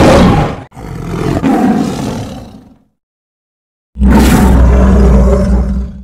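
Big-cat roar sound effects played one after another. A roar ends about half a second in and a second one fades out by about three seconds. After a second of dead silence a loud, deep roar starts near four seconds and cuts off abruptly at the end.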